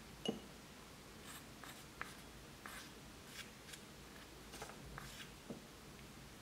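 Small wooden spatula scraping crab and chili pieces out of a miniature metal wok into a small glass dish: a sharp knock just after the start, then a series of short scrapes.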